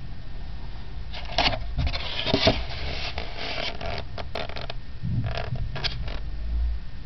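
Foam egg carton being handled and opened, its lid scraping and crackling in a run of quick rasps, then a few more shorter ones about five seconds in.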